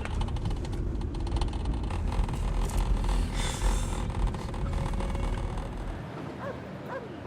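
A steady low rumble of a car driving, with a brief hiss about three seconds in. The rumble cuts off about six seconds in, and a dog begins whining in short high whimpers that rise and fall.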